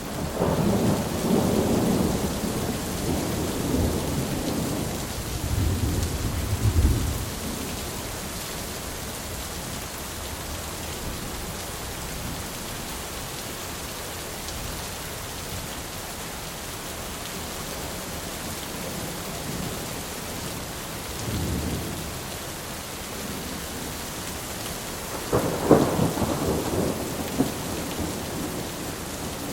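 Steady rain with rolling thunder. A long low rumble swells over the first several seconds, a short fainter rumble comes about two-thirds of the way through, and a sharper thunderclap with rumbling follows near the end.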